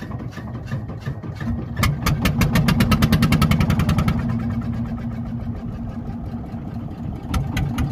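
Fishing boat's engine starting about two seconds in, then running with a fast, even knock, loudest for its first couple of seconds before settling to a steady run.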